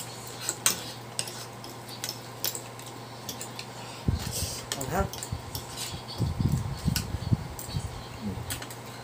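Metal fork clinking and scraping against a plate as it twirls saucy noodles: many short, sharp clicks. Irregular low mouth sounds of eating noodles join in about halfway through.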